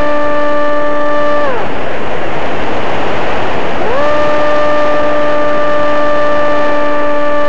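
RC flying wing's electric motor and propeller whining at a steady throttle, pitch falling away about 1.5 s in as the throttle is cut, leaving the rush of wind over the nose camera while it glides, then spinning back up to the same steady whine about 4 s in.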